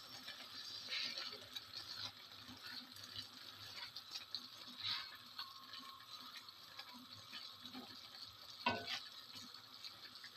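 Faint stirring of instant noodles in a simmering broth with a silicone spatula in a non-stick pan: soft, irregular scrapes and wet sloshes over a steady hiss. One sharper knock comes near the end.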